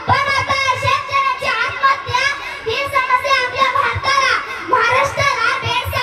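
A young girl's voice through a handheld microphone, declaiming loudly in a chanted, half-sung delivery with long held notes.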